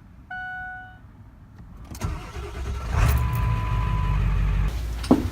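A car's two-note dashboard chime sounds once, then the engine is started and runs, with a short steady beep over it. A sharp knock comes near the end.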